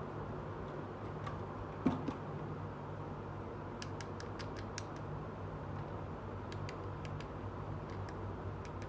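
Small plastic clicks and taps as a pink plastic toy curling iron is picked up and handled, with one thump about two seconds in, over a steady low hum.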